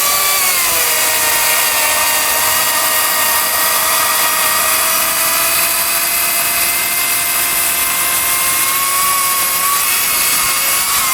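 Atlas 80-volt brushless battery chainsaw making one long, continuous cut through a tree stump: a steady, loud electric motor whine with chain rasp. The pitch settles a little lower as the chain bites into the wood, then rises slightly near the end.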